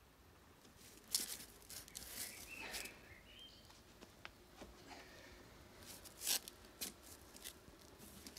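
Faint rustling with a few short clicks and knocks, the loudest about a second in and again about six seconds in.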